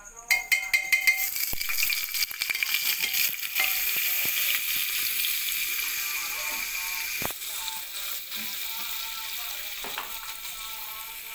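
Butter sizzling as it hits hot oil in a pressure cooker pot, crackling and spitting for the first few seconds, then settling into a steady hiss that slowly fades.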